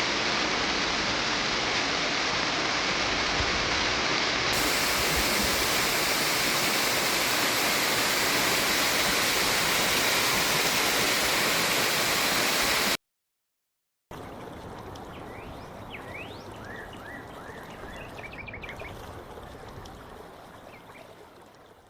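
Waterfall rushing, loud and steady. About 13 seconds in it cuts to a second of silence, then comes back as a quieter rush of water with a few short, high chirps, and fades out at the end.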